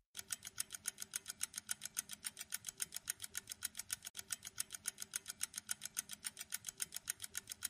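Quiz countdown-timer sound effect: fast, even ticking, about eight ticks a second, fairly quiet.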